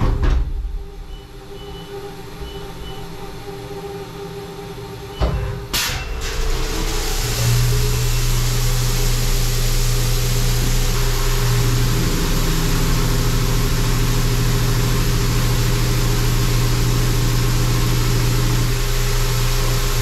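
CNC machining center finish-boring a cylinder bore in an aluminum LS engine block with a single-insert boring head under flood coolant. After a few faint beeps and a couple of knocks about five seconds in, coolant spray starts hissing and a steady spindle hum joins about a second later and holds.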